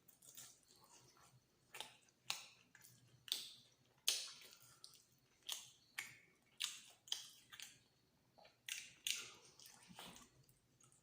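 A person chewing soft food close to the microphone, with about a dozen sharp wet mouth smacks at irregular intervals.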